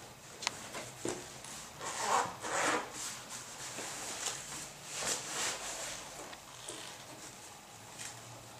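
Rubbing and rustling of a thigh-high high-heeled boot as it is pulled off the leg and handled, in uneven swells that are loudest about two seconds in and again around five seconds, with a few sharp clicks.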